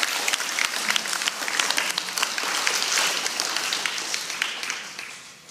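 Audience applauding, many hands clapping at once, dying away over the last second or so.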